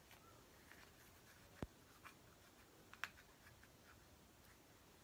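Near silence with a few faint, short clicks and light rustles from hands handling a small red cloth; the two sharpest clicks come about one and a half seconds and three seconds in.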